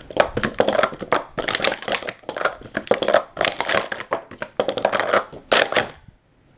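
Speed Stacks Pro Series plastic sport-stacking cups clattering as they are stacked up and down at speed, a fast run of knocks and clicks with fumbles. The clatter stops sharply about six seconds in.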